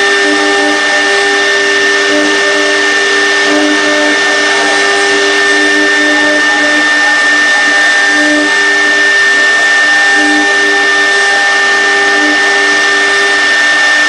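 Air-cooled spindle of a CNC router running at speed: a steady high whine over a loud rushing hiss, with shorter lower hums coming and going.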